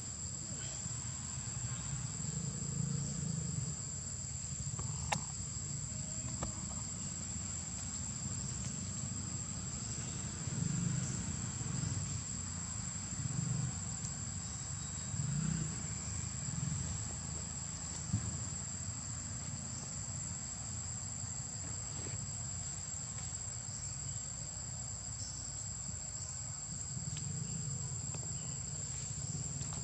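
Insect chorus: a steady, high-pitched drone that holds unbroken throughout, over a low rumble that swells now and then, with a couple of sharp clicks.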